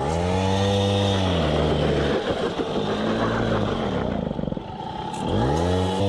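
Peugeot 103 moped's two-stroke engine revving: it climbs sharply, holds high revs for about a second and a half, drops away and runs unevenly, then revs up again near the end.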